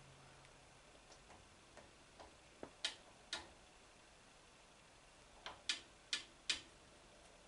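Light, sharp metallic clicks at irregular intervals, with a cluster of four stronger ones in the second half, from hand work on the milling machine as the head is locked and the slip gauges are felt under the gear cutter.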